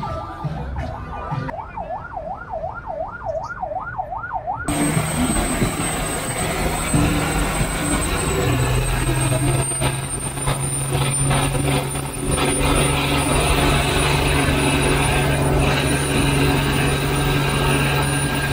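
A siren-like yelp wailing rapidly up and down for about three seconds. It cuts off suddenly to a medium-duty diesel truck engine held at high, steady revs during a burnout, with the rush of spinning tyres and a steady high whistle.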